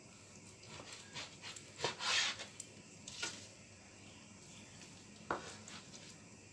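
Kitchen knife cutting raw salmon into strips on a cutting board: a few short knocks and scrapes, the loudest a longer scrape about two seconds in and a sharp knock near the end.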